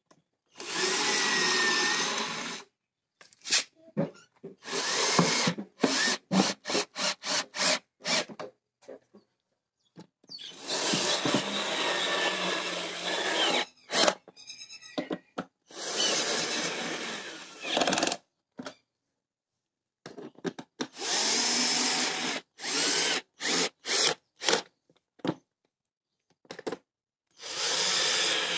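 Cordless drill-driver spinning screws in a plastic air filter housing. It runs in spells of one to three seconds, with two stretches of rapid short trigger pulses.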